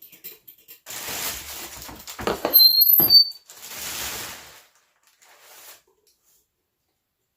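Handling and rustling noises with two short, high-pitched squeaks about two and a half seconds in, the loudest moment.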